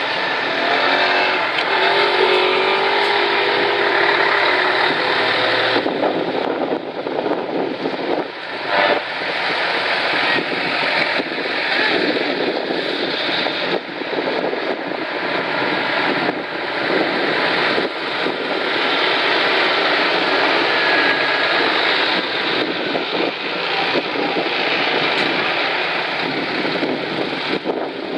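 Trucks driving past with their engines running, a dense mix of engine noise and voices, with a wavering pitched sound in the first few seconds and an abrupt change about six seconds in.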